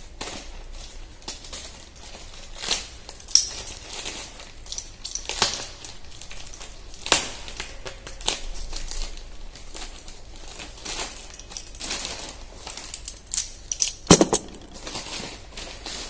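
A parcel's packaging being unwrapped by hand: irregular crinkling and crackling of the wrapping with scattered sharp clicks, and a quick cluster of louder clicks near the end.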